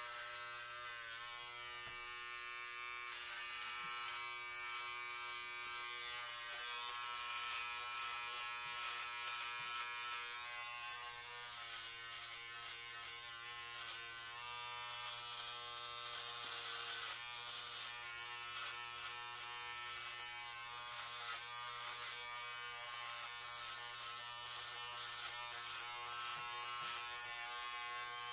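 Electric hair clippers buzzing steadily as they cut hair, the buzz shifting a little now and then as the blades work through it.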